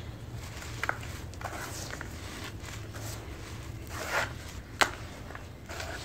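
Hands squeezing and crumbling clumps of red dirt in a bowl: a few short gritty crunches and crackles, the sharpest a snap a little before five seconds in, over a low steady hum.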